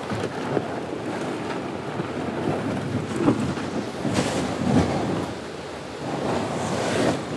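Wind buffeting the microphone with a low rumble, and footsteps crunching over gravel and crusted snow. There are two louder gusts of noise, about four seconds in and near the end.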